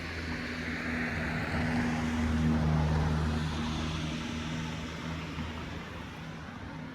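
A motor vehicle passing by on the street: an engine hum with tyre noise that grows louder to a peak about halfway through, then fades away.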